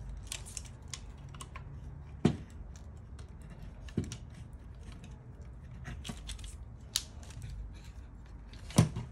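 Plastic and sheet-metal clicks and knocks from an HP LaserJet Pro 400 M401dn fuser unit being handled as its plastic lock is fitted back on, with a few sharper knocks and the loudest near the end.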